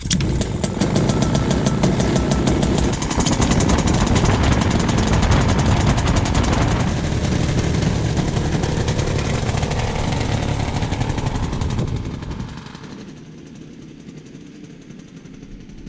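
Small single-cylinder engine of an ultralight aircraft catching on a pull of the starter cord and running fast and rough with a rapid even beat, its propeller turning. About twelve seconds in it gives way to a much quieter steady background.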